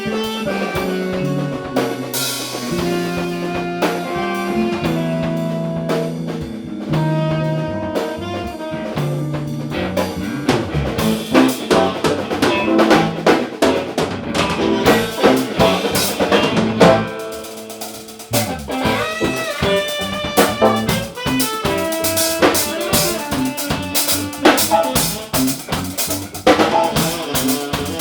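A band jamming in A minor: a drum kit with snare, bass drum and rimshots over held pitched notes from other instruments. The drumming turns busy about ten seconds in, eases briefly a little after halfway, then picks up again.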